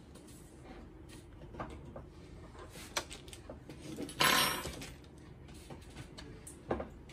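Small plastic printer parts and a hand tool being handled, giving scattered light clicks and taps, with one short, louder clatter about four seconds in.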